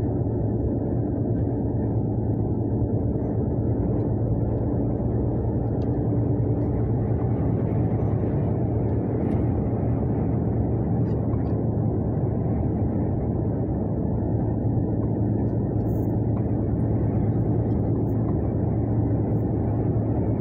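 Steady drone heard inside a moving vehicle's cab, driving at an even speed: a constant engine hum with road and tyre noise beneath it and a few faint ticks.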